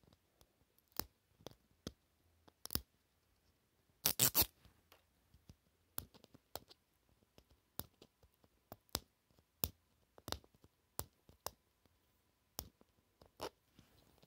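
Fingers handling a hard plastic Mini Brands capsule ball: scattered short clicks and scrapes of fingernails picking at the plastic and its seal, with the loudest burst of clicks about four seconds in.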